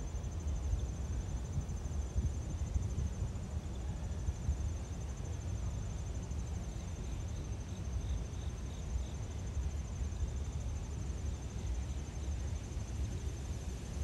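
Insects trilling steadily in summer foliage, a fine high pulsing trill over a low background rumble.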